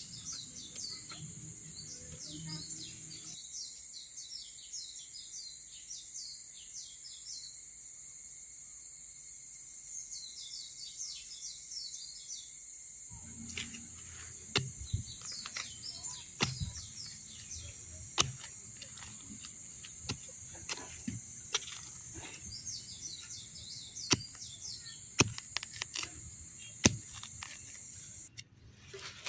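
Small birds chirping in bursts over a steady high-pitched hiss. From about halfway on, scattered sharp clicks and knocks come in.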